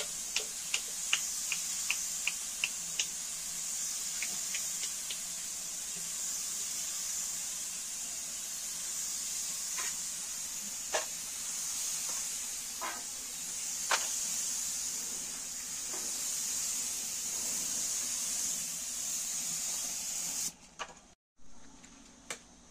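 Compressed-air gravity-feed spray gun spraying paint onto a car bonnet: a steady high hiss of air and atomised paint that cuts off about twenty seconds in. A quick run of light ticks sounds in the first few seconds, with a few single clicks later.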